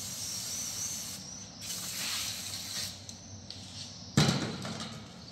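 Aerosol brake cleaner hissing from the can in two sprays over a brake disc and caliper, the second stopping about three seconds in. A single sharp knock follows a little after four seconds.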